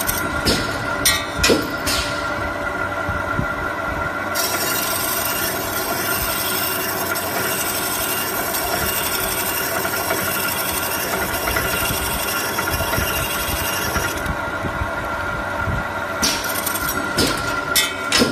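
Automatic circular pipe-sawing machine running with a steady whine. A few sharp clunks from clamping and feeding the stock near the start and again near the end, and from about four to fourteen seconds a harsh hiss as the blade cuts through a clamped bundle of rectangular metal tubes under flowing coolant.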